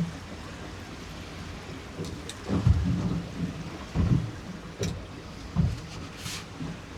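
A small boat rocking on a choppy sea: a steady rush of wind and water with irregular low thuds of waves slapping the hull and wind buffeting, about four in a few seconds, plus a few light clicks.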